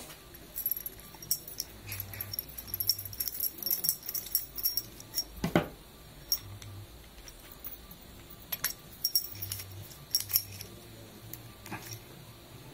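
Irregular light metallic clicks and scrapes of steel pliers gripping a stainless Norseman terminal while its parts are screwed together on wire rope, with one sharper click near the middle.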